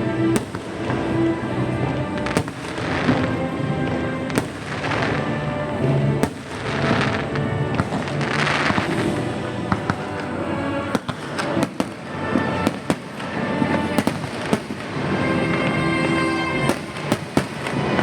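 Aerial fireworks bursting: swells of crackling hiss in the first half, then a run of sharp bangs in quick succession in the second half.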